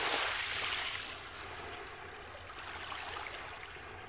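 Small sea waves washing in over a beach of shells and pebbles and draining back. The loudest wash comes at the start and fades within about a second, and a weaker one follows near the middle.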